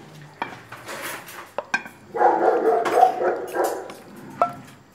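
A dog vocalising: a drawn-out whining call a little past the middle and a short yelp near the end, with a few light clinks of plates and cutlery before it.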